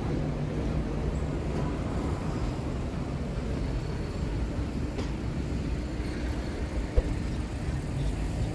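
Steady low rumble of city street traffic: engines and tyres of passing road vehicles, with a single sharp knock about seven seconds in.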